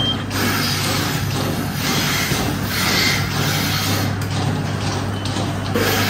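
Milking parlour machinery running: a steady low hum from the milking machine's vacuum system, with a hiss that swells and fades every second or so.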